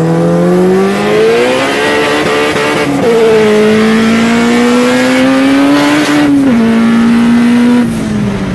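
Turbocharged Honda CRX four-cylinder engine pulling hard under acceleration: the engine note climbs, dips briefly at a gear change about three seconds in, climbs again, then drops sharply about six seconds in as the driver lifts off and settles at a lower steady note, easing further near the end.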